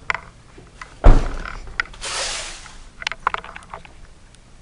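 A heavy thump about a second in, then a brief rustling scrape and a few light clicks and knocks: handling noise as the camera and its holder move into a car's driver's seat.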